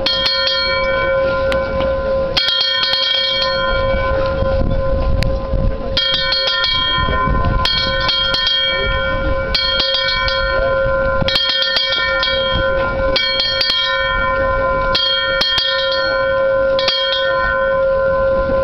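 Large graduation bell rung repeatedly in quick groups of two or three strokes, about every one and a half to two seconds. Its tone keeps ringing between the groups.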